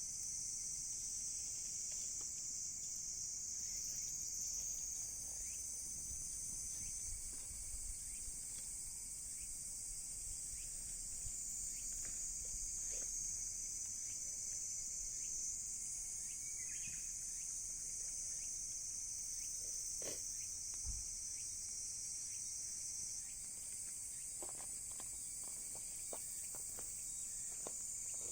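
A steady, high-pitched chorus of insects such as crickets, with a few faint sharp pops and crackles from the wood fire, more of them near the end.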